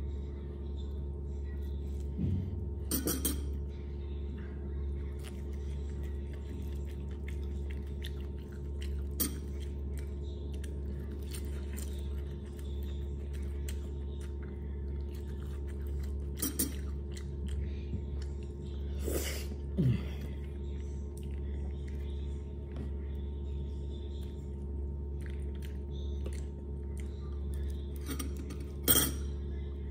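Close-up eating sounds of a person chewing fried egg, with a few sharp smacks or clicks scattered through, over a steady low hum.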